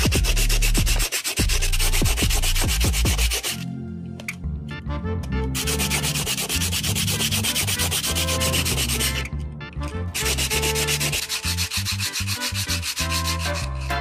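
Abrasive sanding noise, harsh and rasping, in three long bursts of a few seconds each with short breaks between them.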